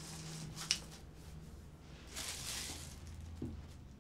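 Quiet room with a steady low hum, a single sharp click about a second in, and a soft rustle about two seconds in.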